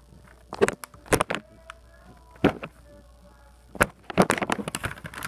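Handling noise from a paper-bag puppet held against the phone: a scattered series of sharp clicks, knocks and paper rustles, with a quick cluster of them near the end.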